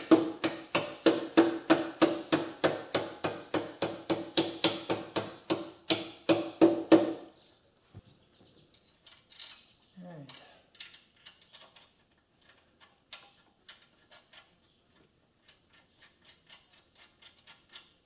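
A soft-faced mallet tapping steadily, about three strikes a second with a metallic ring, on the engine mount of a motorcycle frame to drive the mounting bolt home. It stops about seven seconds in, leaving only faint clicks of metal parts being handled.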